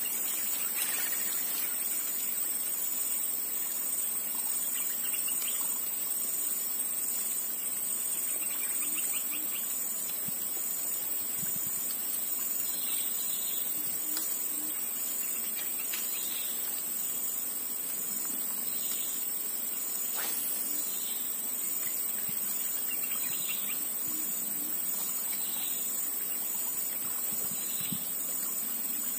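Steady high-pitched drone of insects, with a bird chirping briefly every second or two from about the middle on. A single faint click comes about two-thirds of the way through.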